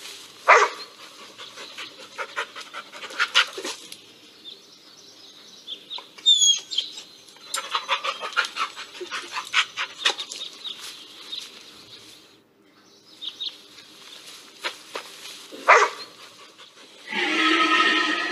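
Recorded dog sounds from a virtual Labrador retriever in Google's 3D augmented-reality view, played through a phone's speaker: scattered barks, the sharpest about half a second in and near the end. A louder, longer sound starts just before the end.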